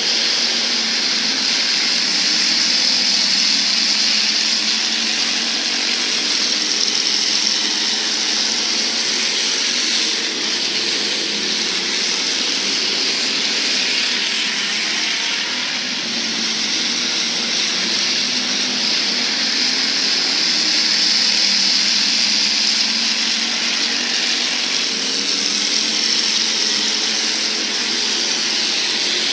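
A field of IMCA hobby stock race cars running at race speed, a steady loud din of several engines together, their pitch rising and falling as cars pass.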